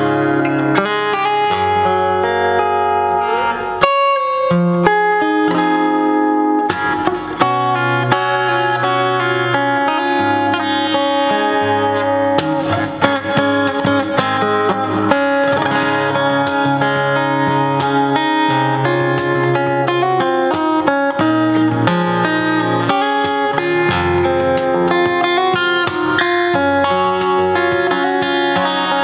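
Overdrive F-41C acoustic-electric guitar played fingerstyle and plugged in: a song with a changing bass line under a picked melody, with occasional strummed chords.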